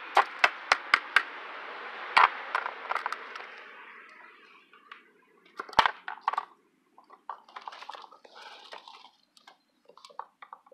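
Plastic parts at the rear of a Ryobi cordless mower being handled while it is switched from mulching to bagging: a quick run of sharp clicks in the first second, another at about two seconds and a louder knock near six seconds, over a hiss that fades after about four seconds, then light rustling and scattered clicks as the grass bag is brought up to hang on.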